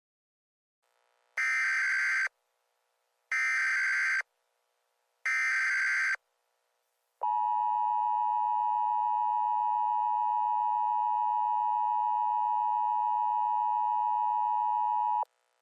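Emergency Alert System tones: the SAME digital header sent three times, each a harsh data blast of about a second, then the two-tone attention signal (853 and 960 Hz together), held steady for about eight seconds and cut off sharply.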